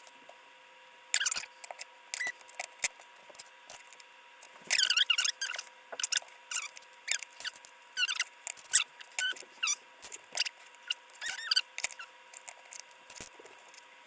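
Small plastic LEGO pieces clicking and squeaking as they are handled and pressed together, in scattered short bursts.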